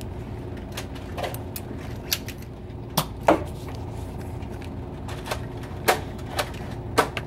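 Toy foam-dart blasters firing and darts striking the door and other surfaces: about ten scattered sharp clicks and knocks at irregular intervals.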